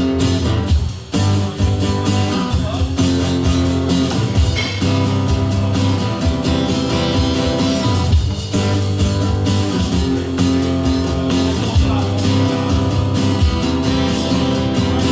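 Live band playing an instrumental passage with no vocals, led by guitar with a steady low bass line underneath.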